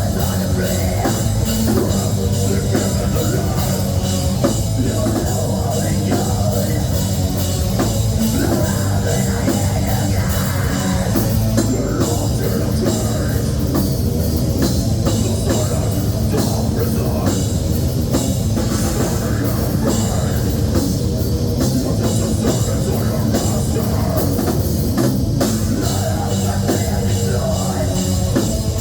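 A heavy metal band playing live: drum kit and guitars, loud and steady.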